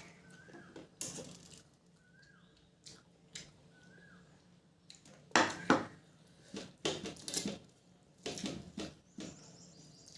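Close-up eating sounds of rice and curry being mixed and chewed: irregular wet smacks and clicks in short bursts, loudest a little past halfway. A few faint, short high chirps sound in the first four seconds.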